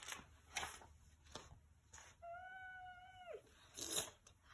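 A single long, high meow, steady and then dropping in pitch at the end, about two seconds in. Soft taps and rustles of the picture book's pages come around it.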